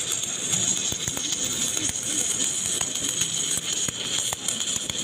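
Submerged arc welding with an automatic wire feed under flux powder: a steady hiss with irregular crackles and clicks from the arc.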